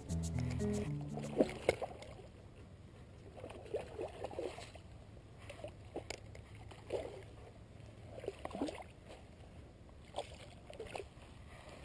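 Background music ends about a second in. Then a hooked carp splashes at the surface in short, irregular bursts as it is reeled toward the bank on a spinning rod.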